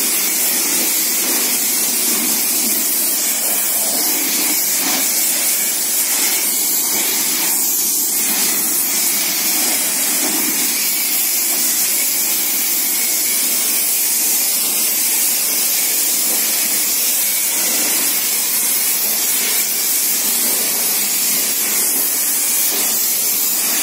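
Pressure-washer lance spraying a high-pressure jet of water onto a car's doors and bodywork, rinsing off foam: a steady hiss of water and spray.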